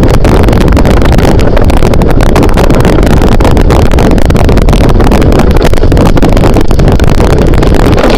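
Strong wind and rain battering the microphone of a camera mounted outside the moving Dominator 3 storm-chasing vehicle: a loud, unbroken rush of wind noise full of crackles.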